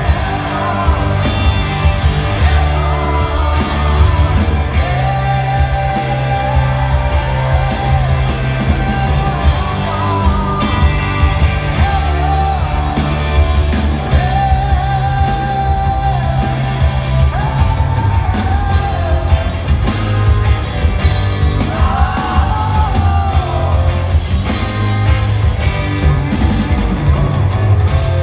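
Live rock band in an arena, heard from the audience: a male singer holds long, wavering high notes over electric guitar, bass and drums. The bass end is loud and heavy.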